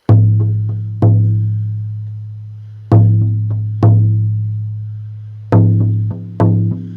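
16-inch deerskin shamanic frame drum struck with a firm beater: strong beats with lighter taps between, each leaving a deep tone that rings on and fades slowly. The beats come closer together near the end.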